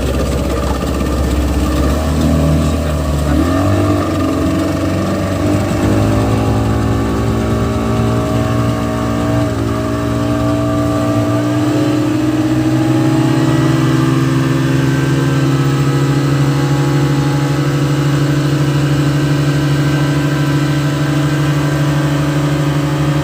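Two 40-horsepower engines running together, their pitch climbing in steps over roughly the first dozen seconds as they are brought up to speed, then holding steady at high revs.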